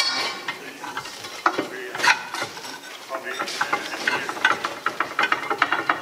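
Steel tools clanking, clinking and scraping against rusted steel brake parts inside a Panzer IV hull as a long pry bar is levered on them. There are louder clanks about a second and a half and two seconds in, then a quick run of ringing clicks through the second half.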